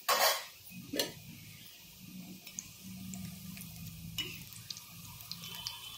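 A metal slotted ladle clatters against a plate as fried gulab jamun balls are tipped off it. There is a loud clatter at the start and a sharp knock about a second in, then light scattered ticks.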